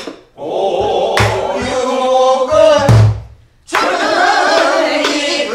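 Several voices singing a pansori phrase together in unison, learning it by repeating after the teacher, with a few low beats on a buk barrel drum. The first phrase breaks off about three and a half seconds in and a second phrase follows at once.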